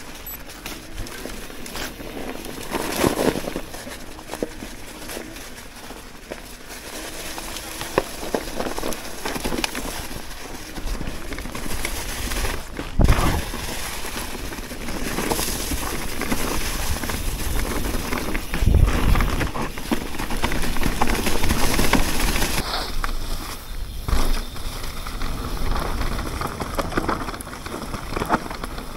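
Electric mountain bike riding over a frosty, leaf-covered forest trail: tyres rolling and crackling through dry leaves and frozen ground, with a steady rushing noise and knocks and rattles from the bike over bumps. The heaviest knocks come about 13 and 19 seconds in.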